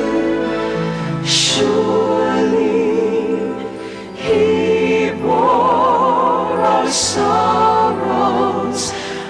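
Choir singing a slow gospel song with vibrato in the voices, swelling louder about four seconds in.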